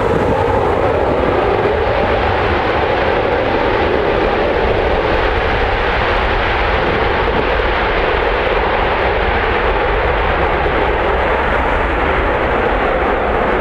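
F-16 fighter jets' engines at takeoff thrust as the jets roll down the runway and lift off: a loud, steady jet blast with no break.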